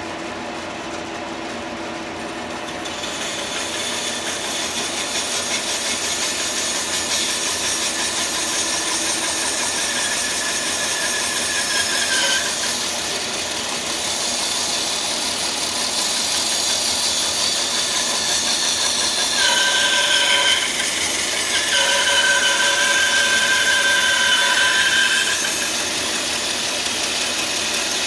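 Bandsaw running and cutting through a small cedar log, a steady running sound with a whine that dips in pitch about twelve seconds in and grows louder from about nineteen to twenty-five seconds in as the blade takes the cut.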